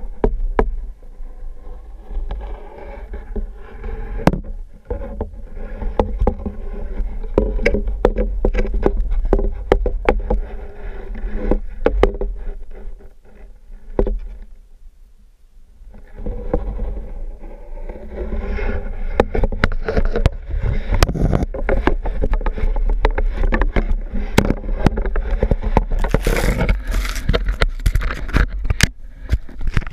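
Muffled low rumble of water moving around an underwater camera, with many clicks and knocks as its housing bumps and scrapes. The noise eases off briefly around the middle, then comes back busier and louder as the camera is handled.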